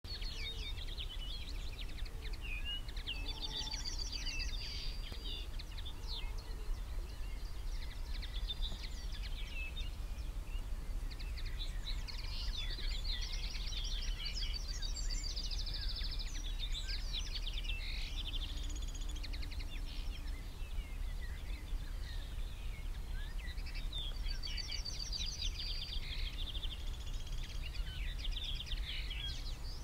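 Several birds singing, with many overlapping chirps and rapid trills, over a steady low rumble.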